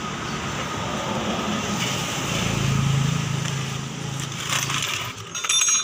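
A vehicle engine running steadily, with its hum growing louder in the middle and fading after. Near the end come a few sharp metallic clicks, as from a hand tool on metal.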